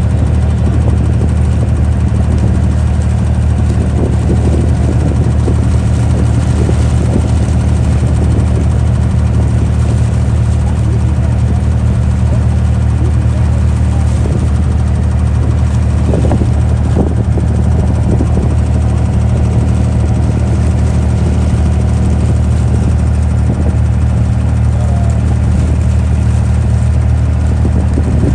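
Boat engine running steadily with a deep, even hum, heard from on board while the boat cruises.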